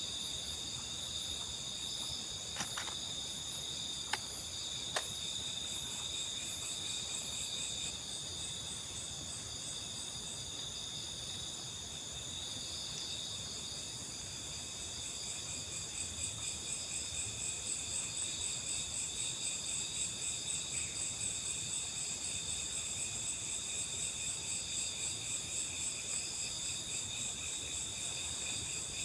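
Night chorus of crickets and other insects: a steady, high shrill in several tones that turns into a regular pulsing about halfway through. A few faint clicks come in the first few seconds.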